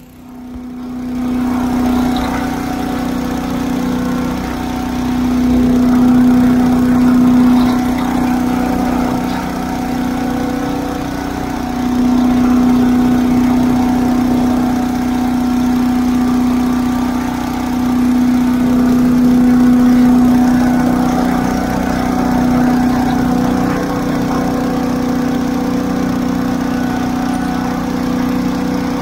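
Tractor-mounted 8 hp Little Wonder leaf blower running at full throttle, its small engine and fan making a steady hum that swells and eases slowly as it blows leaves across the lawn.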